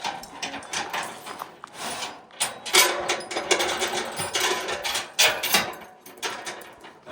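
Irregular knocks and clanks of metal gear being handled, coming in uneven clusters with no steady rhythm.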